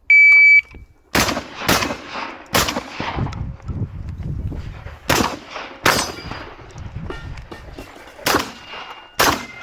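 A shot timer's loud start beep, about half a second long, then shotgun shots fired in quick groups: three in the first few seconds, two more after a pause, and two near the end.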